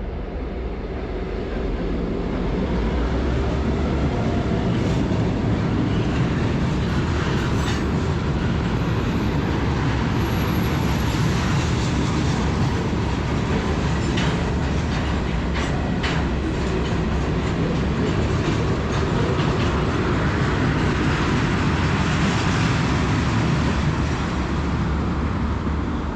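Train crossing a railroad bridge overhead, heard from underneath: a loud, steady rumble of wheels and cars with clicking of wheels over the rail joints. It builds over the first couple of seconds and eases slightly near the end.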